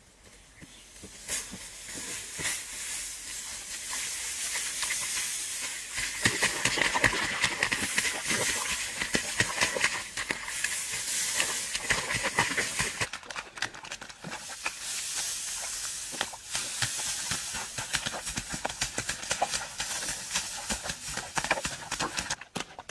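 Dry straw rustling and crackling as armloads are dropped onto wet mud and trampled, with the dense clicking of footsteps treading it in.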